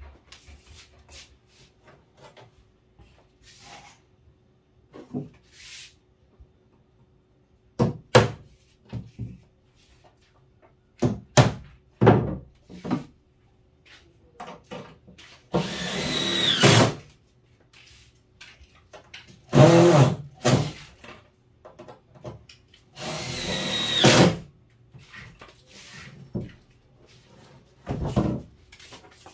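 Cordless drill driving screws into a plywood countertop in three runs of about a second each. Short knocks come between the runs as the drill and screws are handled on the wood.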